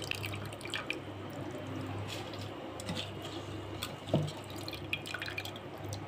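Spiced water with rice simmering in a pan: small bubbling pops and drips over a steady low hum.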